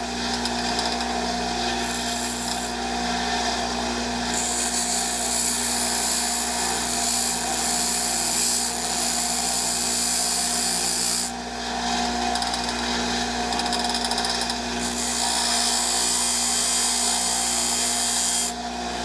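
Electric grinder running steadily while its wheel grinds the thin steel strip from a windshield wiper blade into a lock pick. The high hiss of metal on the wheel comes and goes: briefly about two seconds in, then from about four to eleven seconds and again from about fifteen seconds until near the end.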